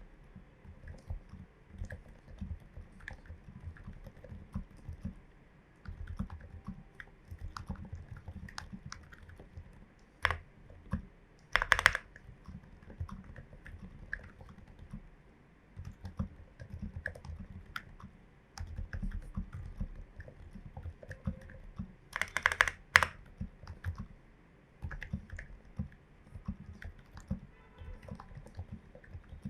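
Typing on a Glorious GMMK Pro mechanical keyboard with tape mod, lubed and filmed switches and MT3 keycaps: a steady run of key strokes, with a few louder strokes about ten, twelve and twenty-two seconds in.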